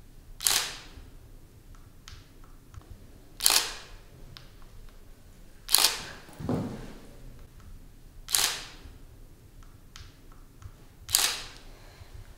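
Digital SLR camera shutter firing five single shots, one every two and a half to three seconds, each a sharp clack. A duller thump comes just after the third shot.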